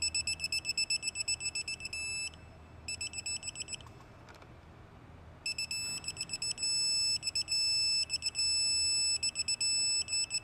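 Digital torque wrench beeping as an oil filter is tightened to 16 pounds. Rapid high-pitched beeps stop for a moment about four seconds in, then quicken into long held tones with brief breaks from about six and a half seconds: the wrench signalling that the set torque is reached.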